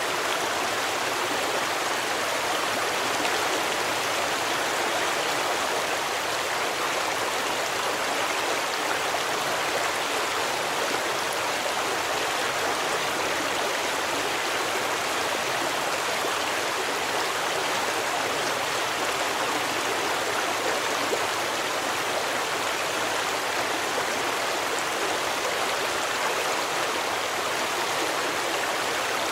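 A forest stream flowing and splashing over rocks, a steady rushing sound without pause.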